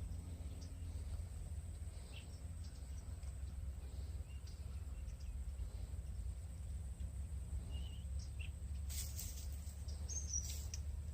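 Rural outdoor ambience: a steady low rumble and a thin steady high insect hum, with faint scattered bird chirps. A few rustles or knocks come near the end.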